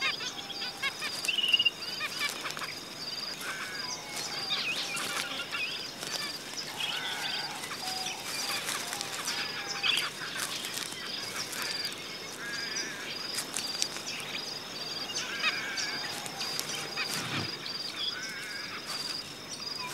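Zebra finches calling: many short chirps and nasal, honk-like calls, scattered throughout, over a faint, evenly pulsing high tone.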